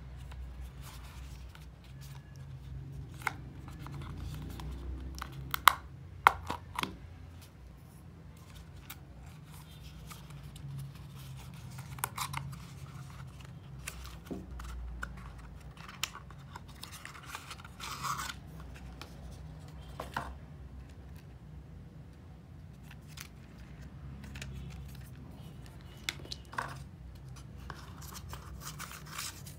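Small cardboard box of Apple Pencil tips being handled and opened by hand: scattered clicks, scrapes and rustling of card, with a few sharp snaps about six seconds in, over a low steady hum.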